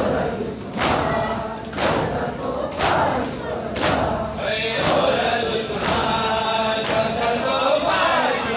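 Crowd of men doing sena zani (matam chest-beating) in unison, a hand-on-chest thud about once a second, under a Pashto nauha sung by voices together. From about halfway in the massed chanting grows stronger.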